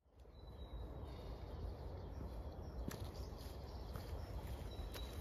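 Faint outdoor ambience fading in from silence: a low steady rumble with a few thin, high bird chirps, and a couple of soft footsteps on a dirt path.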